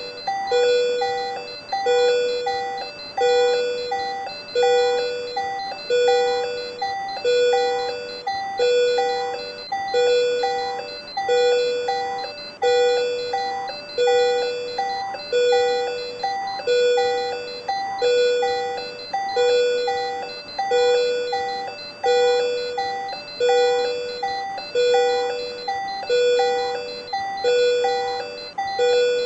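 Patient monitor alarm sounding during supraventricular tachycardia (SVT): a repeating electronic beep, about one a second, each a short pitched tone that starts sharply and fades, going on without a break.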